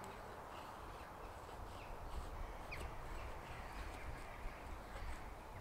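Knife blade shaving thin curls down a pine stick to make a feather stick, in repeated scraping strokes, with a few short high chirps over it.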